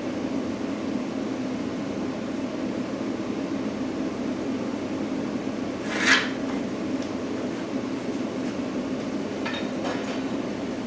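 Steady mechanical hum in a garage, with one brief scrape on the plywood about six seconds in and a couple of faint taps near the end.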